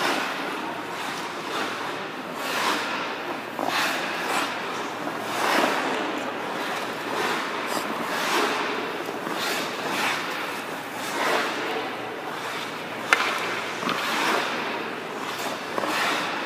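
Hockey goalie's skate blades scraping and carving the ice in repeated swishes, about one a second, as he pushes and slides across the crease. A single sharp knock comes about thirteen seconds in.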